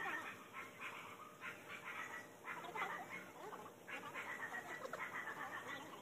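Faint animal calls: many short calls rising and falling in pitch, scattered throughout.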